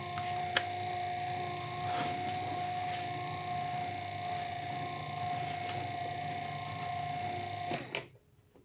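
Restored DC windscreen wiper motor running unloaded, a steady electric whine from the motor and its reduction gearing with a few light clicks, while the output crank turns slowly. It cuts off suddenly near the end.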